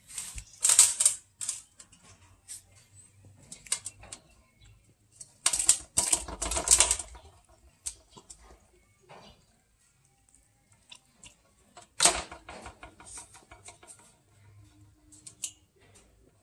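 A cat crunching and chewing fried fish and its bones: bursts of rapid, crisp clicking lasting a second or so, three main bursts with quieter scattered crunches and pauses between.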